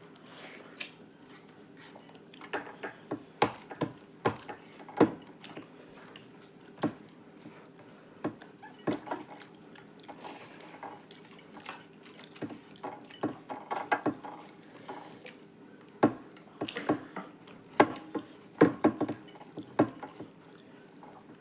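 Eating at a meal: irregular clicks, taps and mouth sounds from chewing and from hands or cutlery on plates, over a steady low hum.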